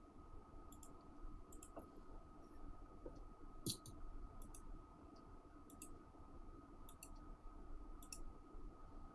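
Faint computer mouse clicks, a dozen or so scattered irregularly about a second apart, some in quick pairs, over a faint steady high-pitched hum.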